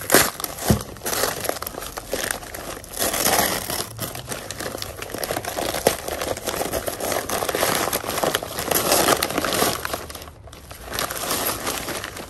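Old newspaper being unwrapped and crumpled by hand: continuous rustling and crinkling of paper, with a couple of sharp crackles near the start and a brief lull about ten seconds in.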